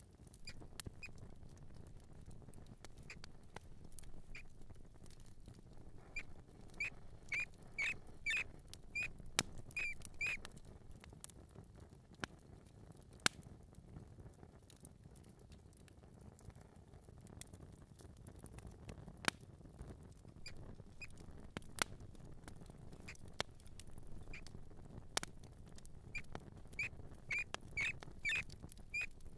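Mouse squeaking and scurrying: two runs of short, high squeaks, several a second, one about six seconds in and one near the end, with scattered sharp scratchy clicks over a low rumble.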